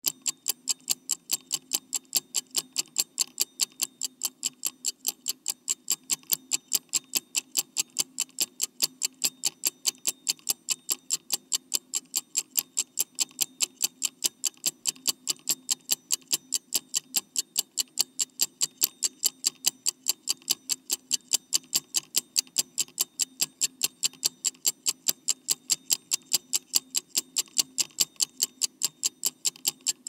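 Clock ticking quickly and evenly, about four ticks a second.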